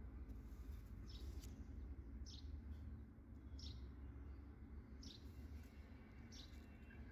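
A bird repeating one short high chirp, five times about 1.3 seconds apart, faint over a steady low outdoor rumble.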